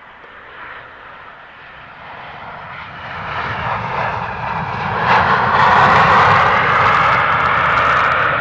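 Boeing 737-800's CFM56 jet engines spooling up into reverse thrust just after touchdown: a broad engine rush that swells over about five seconds and then holds loud, with a low rumble under it.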